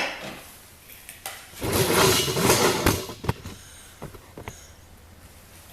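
Hands working on a snowblower engine's shrouds with tools: a sharp click, then a loud rattling, scraping stretch of about a second and a half, followed by a few light clicks.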